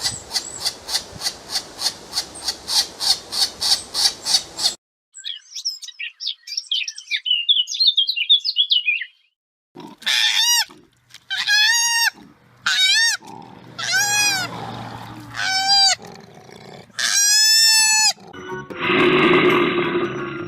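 A run of different animal calls: first a rapid pulsing call, about five pulses a second. Then high bird twittering, then a series of loud rising-and-falling calls, and a low growl near the end.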